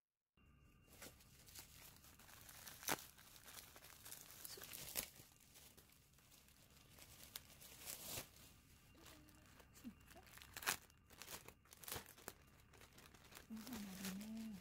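Packaging being opened by hand: wrapping crinkling and tearing, with a scatter of sharp clicks, a few of them louder.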